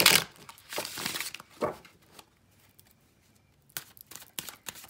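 Tarot cards shuffled by hand: a papery rush of riffled cards at the start and again about a second in, then a pause, then a string of light card clicks and taps near the end as the cards are handled.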